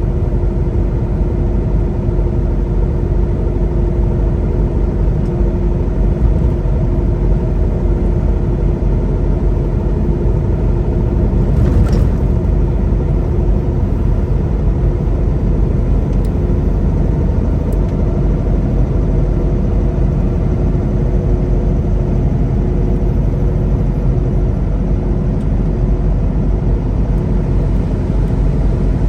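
Steady engine and road noise of a semi-truck heard from inside the cab while cruising, with a steady low drone and hum.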